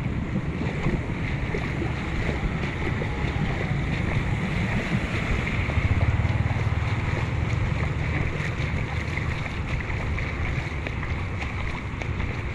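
Steady wash of shallow floodwater over a street, with wind rumbling on the microphone that swells midway through.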